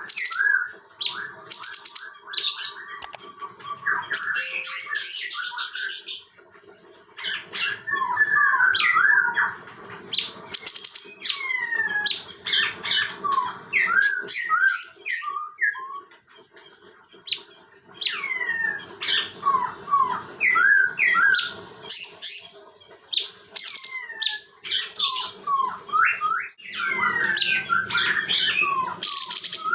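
Cucak cungkok singing as a tutor bird: a long run of quick, sharp whistled notes, many sliding down in pitch, mixed with high buzzy notes and broken by short pauses between phrases.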